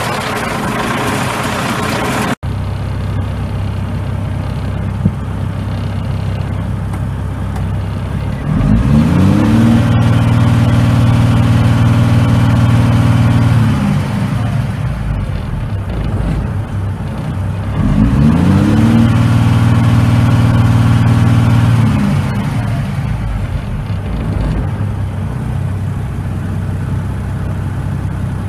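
Cummins L10 inline-six diesel engine running: idling, then revved up twice, each time held high for several seconds before dropping back to idle.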